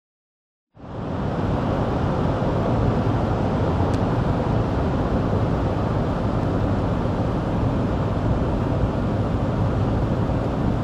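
Steady road and engine noise inside a moving car's cabin, fading in about a second in.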